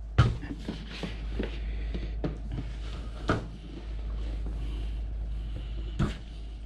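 Cardboard figure boxes being handled and set down on a table: a sharp knock just after the start, then several lighter knocks and rustles, and another knock near the end, over a low steady hum.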